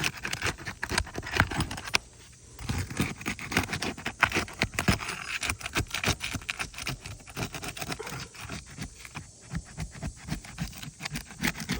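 Asphalt roof shingles being lifted and handled, a dense run of scraping and crackling clicks with a brief pause about two seconds in. The shingles are brittle, past the point of repair.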